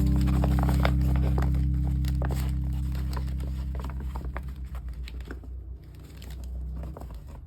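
Packaging being handled, crinkling and rustling in many small irregular crackles. Under it a low held chord of background music slowly fades out.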